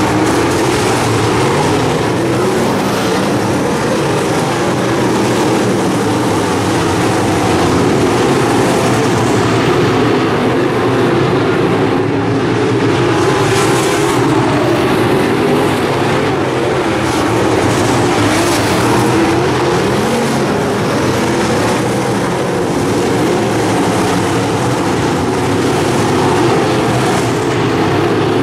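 A pack of dirt-track modified race cars running laps at speed, their V8 engines merging into one loud, continuous drone.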